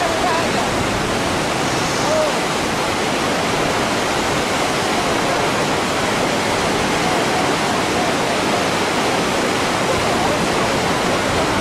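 Steady rushing of white water churning down a concrete artificial slalom course.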